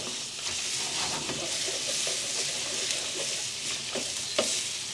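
Raw chicken pieces sizzling in hot oil in a stainless steel wok as they are stirred with a wooden spatula, at the start of sautéing. A couple of knocks sound near the end.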